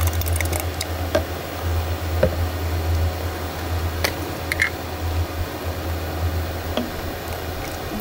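A steady low hum with scattered small clicks and taps over it.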